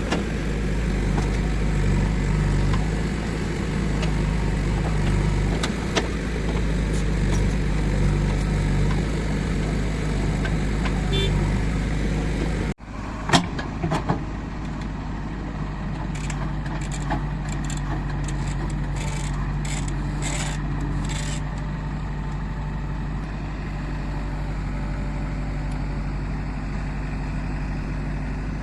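Diesel engine of a JCB 3DX backhoe loader running steadily while it digs and loads soil. About halfway through the sound breaks off abruptly. A couple of sharp knocks follow, then a run of short clanks a few seconds later over the steady engine.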